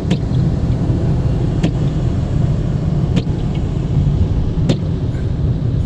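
Road noise inside a moving car's cabin: a steady low rumble from tyres and engine on a wet, slushy road. Four short sharp strokes about every second and a half from the windshield wipers.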